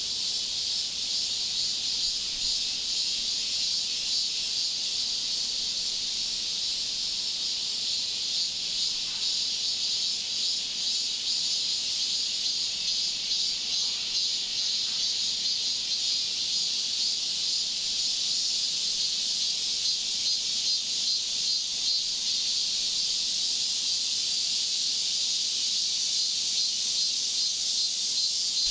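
Insects chirping in a steady high-pitched chorus with a fast pulsing rhythm, the pulses growing more distinct in the second half.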